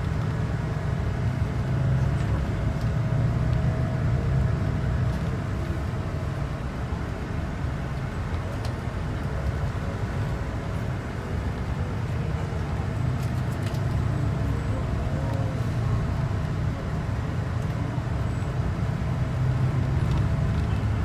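A car driving along, with a steady low rumble of road and engine noise heard from inside the cabin.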